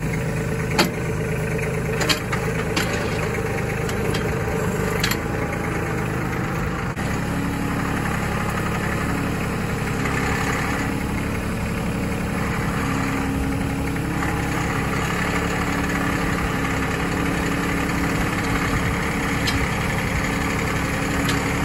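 Compact tractor engine idling steadily, with a few sharp knocks in the first five seconds; the engine note shifts slightly about seven seconds in.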